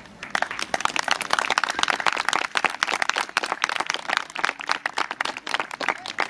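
A small audience applauding: a dense patter of separate hand claps that starts about half a second in and keeps on steadily.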